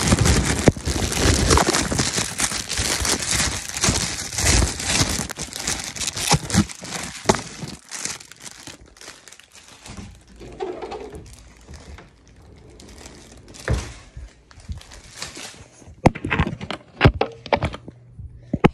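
Loud, close crinkling and rustling right at the microphone, dense for the first eight seconds or so, then thinning into scattered clicks and knocks with a few sharp ones near the end.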